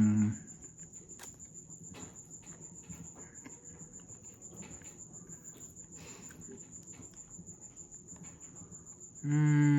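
A cricket's steady high trill, with faint scattered clicks of chewing. Near the end a man gives a short hummed "mmm" while tasting.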